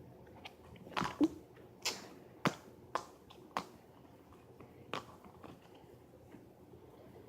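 Plastic Play-Doh tubs and dough being handled: a run of about seven sharp clicks and taps in the first five seconds, then quiet handling.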